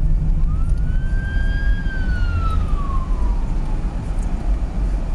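Steady low road and engine rumble inside a moving car. About half a second in, a single siren-like wail rises, holds, then slides down in pitch over about three seconds.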